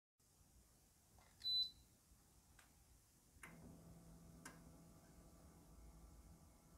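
Split air conditioner indoor unit switching on by remote: one short high beep about a second and a half in, then a few soft clicks and a faint steady hum as the unit starts up and its louvre opens.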